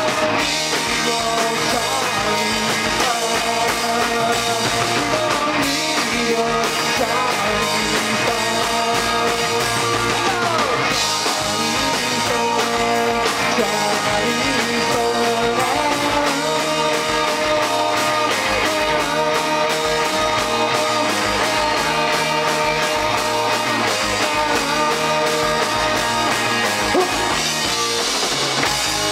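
Garage rock band playing live: drum kit, hollow-body electric guitar and electric bass, with a man singing lead.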